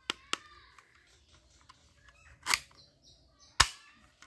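Plastic toy revolver snapping as its trigger is pulled: two light clicks at the start, then two loud sharp snaps about a second apart near the end.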